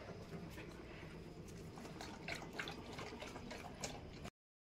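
German Shepherd dog lapping water from a steel bowl: faint, irregular wet laps and splashes. The sound cuts out abruptly near the end.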